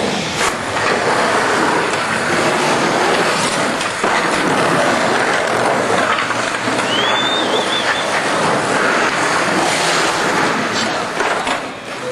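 Skateboard wheels rolling and carving on the concrete walls of an empty backyard pool, a continuous rumble, with sharp knocks of the board against the coping about half a second in and near the end.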